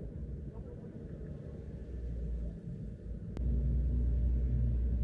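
Low steady rumble of a parked vehicle's running engine, heard from inside the cab. About three and a half seconds in, a sharp click, after which the rumble is louder.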